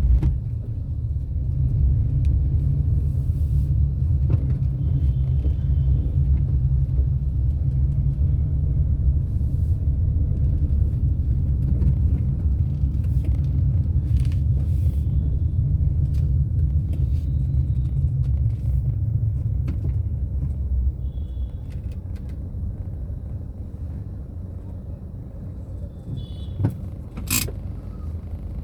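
Car on the move: a low, steady road and engine rumble that eases off about twenty seconds in, with a short sharp click near the end.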